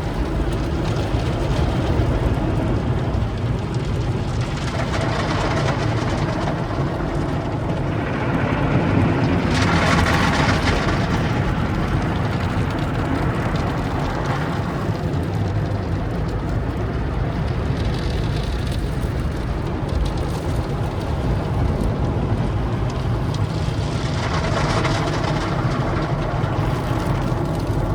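A car running, a steady low rumble with a few swells of hissing noise.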